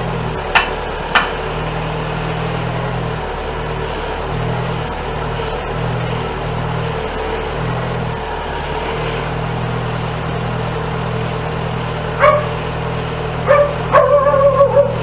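Volkswagen Voyage G5 engine idling steadily, with a few short, sharp pitched sounds near the end.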